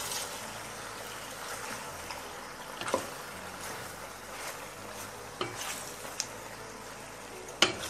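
Wooden spoon stirring penne in tomato-paste sauce in a stainless steel pot over a steady sizzle. The spoon knocks sharply against the pot a few times, loudest near the end.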